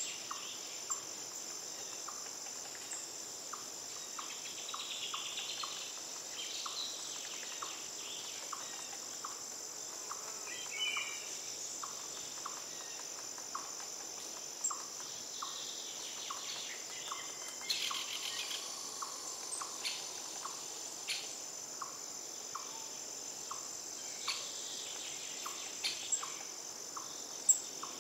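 Tropical forest ambience: a steady, high-pitched insect drone with a short chirp repeating about twice a second, and scattered bird chirps.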